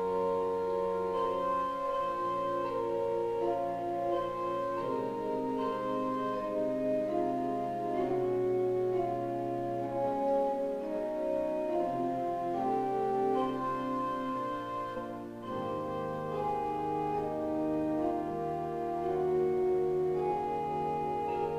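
Church pipe organ playing slow, sustained chords, the held notes moving from chord to chord every second or so.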